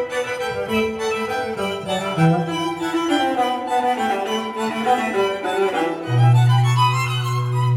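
Dramatic violin music played at full volume through a JBL Flip 5 Bluetooth speaker. A moving violin melody runs over the strings, and about six seconds in a deep held low note comes in underneath.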